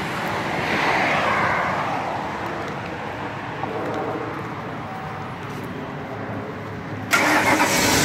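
Outdoor road traffic noise: a vehicle going by, swelling over the first second and slowly fading. About seven seconds in, a sudden louder rush of noise.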